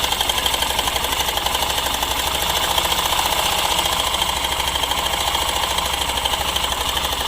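Hero Super Splendor BS6's 125cc single-cylinder engine idling with a steady, fast metallic rattle. The rattle sounds like a timing chain, which the mechanic takes for a failing chain tensioner/adjuster or a loose timing chain.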